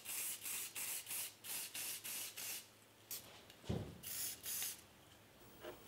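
Spray paint hissing onto a masked lathe handwheel in about a dozen short bursts, two or three a second at first, then more spaced out after a pause. There is a brief knock about two thirds of the way through.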